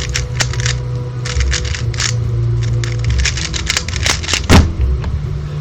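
Rubik's cube layers being turned by hand: quick irregular plastic clicks, with a louder knock about four and a half seconds in.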